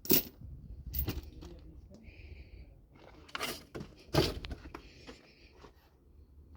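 A few sharp knocks, the loudest right at the start and about four seconds in, over a faint low hum.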